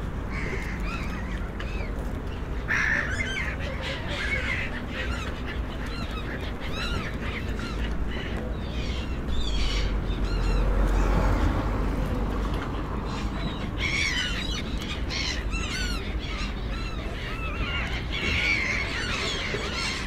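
Gulls calling: many short, harsh cries overlapping and repeating, busiest a few seconds in, about two-thirds through and near the end. A low steady rumble lies underneath and swells around the middle.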